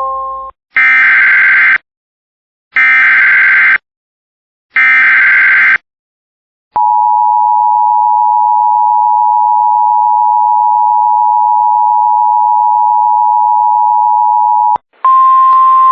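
Emergency Alert System header: three one-second bursts of screeching digital SAME data, then the EAS two-tone attention signal (853 and 960 Hz), held steady for about eight seconds and cutting off sharply. This sequence marks the start of a new alert.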